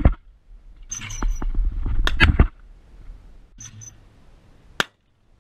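Shotgun shots at clay targets: one right at the start, a quick double about two seconds in, and a single sharp crack near the end, with hissy noise between them.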